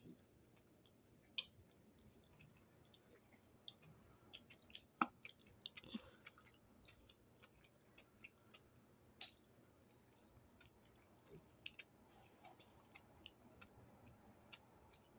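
Faint, close-miked chewing: a person eating, with irregular soft wet mouth clicks and smacks, a few sharper clicks standing out.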